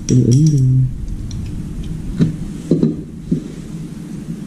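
A brief voice-like sound at the start, then three sharp knocks about half a second apart as small parts are handled on the tile floor, over a steady low hum.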